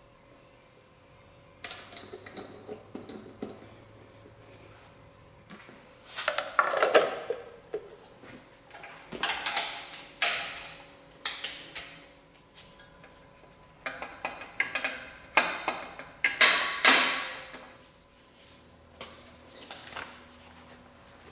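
Metal hand tools and engine hardware clinking and rattling in several short bursts of clatter, with quiet gaps between.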